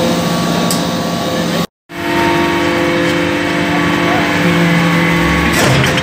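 Y81-4000 hydraulic briquetting press running while it compacts copper chips into briquettes: a steady hydraulic pump and motor drone with several steady hum tones. The sound cuts out briefly just under two seconds in and resumes with a different hum. A low thump and rattle come near the end.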